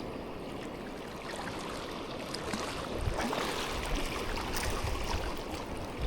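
Shallow seawater trickling and lapping around the reef flats, a steady wash that grows a little louder with a low rumble from about three seconds in.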